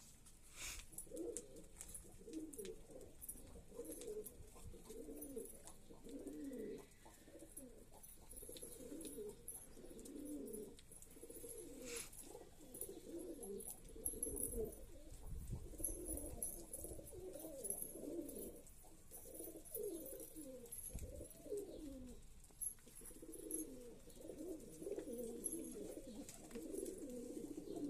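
Several domestic pigeons cooing over one another, low and nearly continuous.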